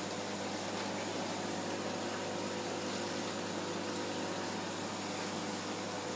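Aquarium water pump running, with water flowing steadily from the tank's pipe: a constant watery hiss over a steady low hum.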